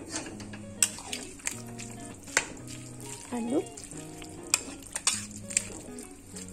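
Spatula stirring grated white radish into a thin rice-flour batter: wet squelching and sloshing, broken by repeated sharp knocks and scrapes of the spatula against the bowl. Soft background music plays underneath.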